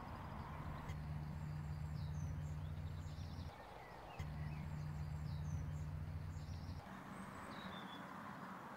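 Two-cylinder De Dion-Bouton engine of a 1907 Delage Type F idling with a steady low beat, broken off for under a second about three and a half seconds in and fainter near the end. Birds chirp over it.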